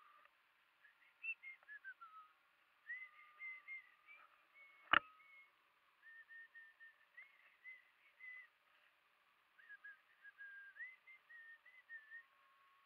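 A person whistling a slow tune, faint, in held notes with small slides between them. A single sharp click about five seconds in is the loudest sound.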